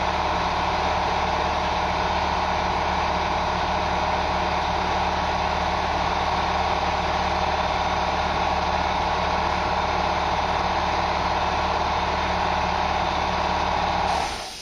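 Steady machine drone with a low hum underneath and a strong mid-pitched band, cutting off suddenly near the end.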